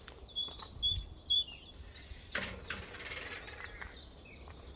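A small bird chirping: a quick run of short, high chirps, about three a second, over the first two seconds, then a brief rush of noise about two and a half seconds in.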